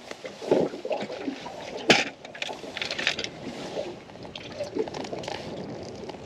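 Rustling and handling noise close to the microphone as fishing tackle is handled, in uneven bursts, with one sharp click about two seconds in.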